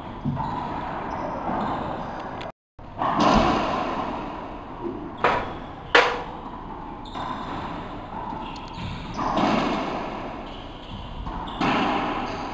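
Racquetball play in an enclosed court: sharp cracks of the ball off racquets and walls, echoing, with the two loudest hits a little under a second apart near the middle.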